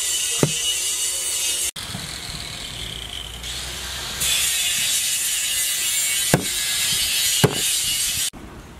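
Cleaver scraping scales off a red fish on a wooden chopping board: a dense, high scraping noise, quieter for a couple of seconds early on, with three sharp knocks of the blade against the board.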